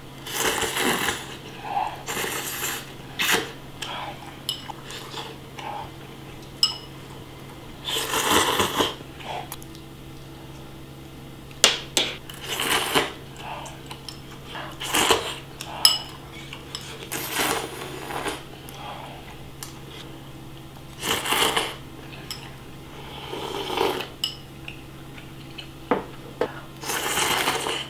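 Close-up eating sounds of noodles and fish-cake soup: about a dozen short slurps every couple of seconds, with metal chopsticks clicking against a ceramic bowl, over a steady low hum.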